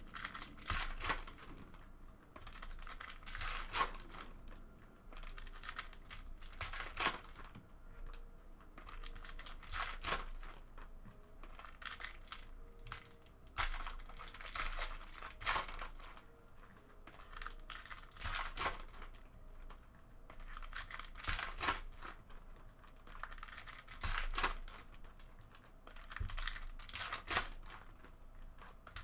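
Foil wrappers of 2016 Panini Contenders Draft Picks card packs being torn open and crinkling, with the cards inside slid out and shuffled against each other, in irregular bursts every second or two.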